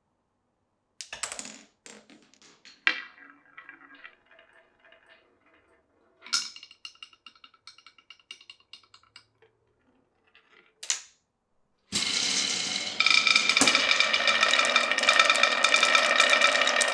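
Marbles dropping onto and rolling along a wooden marble run: separate clicks and knocks with short ringing, two sharper hits about six and eleven seconds in, then from about twelve seconds a dense, louder, continuous clatter with steady ringing tones.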